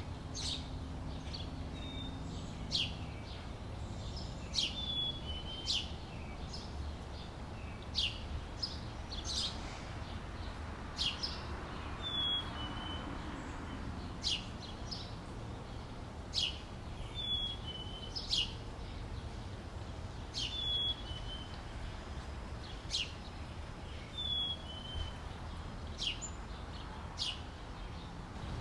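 Outdoor summer-day ambience: birds chirping in short sharp calls about once a second, some ending in a brief falling whistle, over a steady low background rumble.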